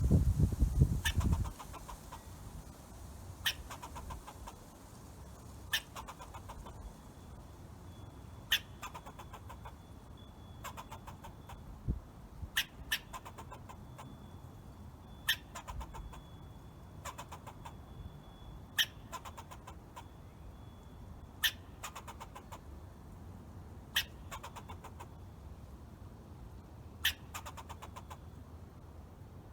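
Squirrel calling: sharp chips repeated every two to three seconds, each followed by a brief rapid chatter. A low rumble fills the first second and a half.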